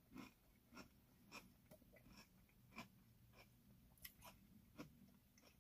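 Faint chewing of a mouthful of Apple Pie Toast Crunch cereal in milk, a few soft crunches at uneven intervals, the squares already turning soft and spongy in the milk.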